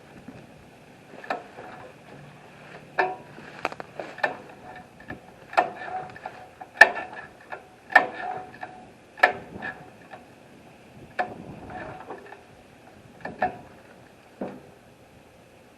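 A series of sharp, irregular knocks or clanks, roughly one a second, some ringing briefly.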